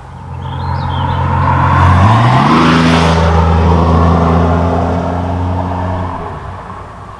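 1997 Camaro's 3.8L V6 exhaust through a Cherry Bomb muffler, accelerating. The engine note climbs in pitch over the first two seconds, holds steady and loud, then dies away near the end.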